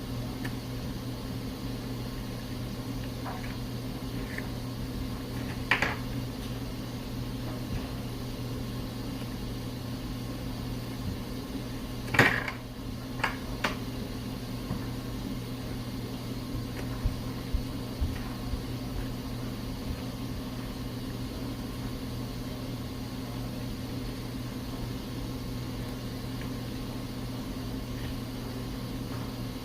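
A steady low electrical hum, like a small appliance running, with a few short clicks and knocks, the loudest a sharp knock about twelve seconds in followed by two lighter ones.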